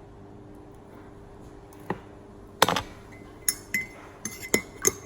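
A spoon clinking and knocking against a bowl while stirring sticky slime: a quiet first two seconds, then about seven irregular clinks, some leaving a brief high ring from the bowl.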